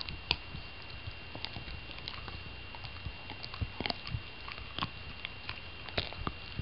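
A puggle gnawing on a chew bone: irregular clicks and scrapes of teeth on the bone, some sharper than others.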